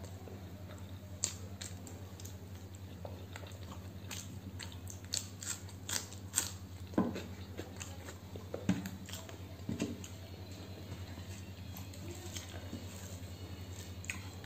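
Close-miked eating sounds: chewing with sharp wet mouth clicks, while fingers mix rice and curry on the plate. The clicks come thickest from about five to ten seconds in, over a steady low hum.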